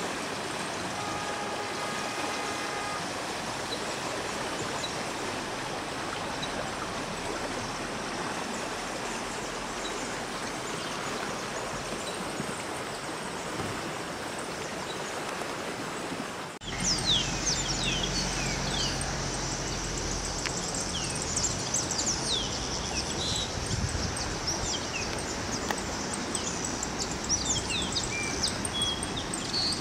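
A small stream rushing steadily over stones. After a sudden cut about halfway through, many small birds chirp over a low steady rumble.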